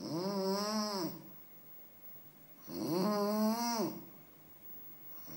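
Snoring, one snore about every two and a half to three seconds, each lasting about a second as a pitched tone that rises, holds and falls, with a breathy hiss over it. Two full snores, and a third begins at the very end.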